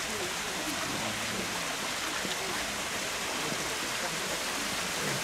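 A steady hiss with faint voices murmuring underneath.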